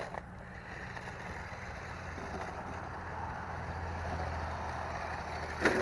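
Sharper Image Mountain Thrasher toy RC truck driving over rough ground: a steady hum from its electric drive and tyres, growing a little louder after the middle. There is a sharp knock near the end.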